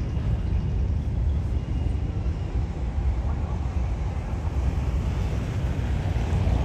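Steady low rumble of a train running by on the tracks.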